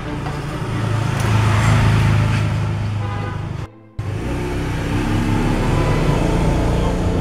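A motor vehicle passing, its rumble swelling and fading over the first few seconds, over background music. The sound drops out briefly near the middle, then the background music carries on.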